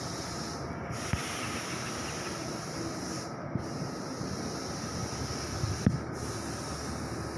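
Heavy FAW tractor unit's diesel engine idling: a steady rumble, with a light knock about a second in and a sharper one near the end.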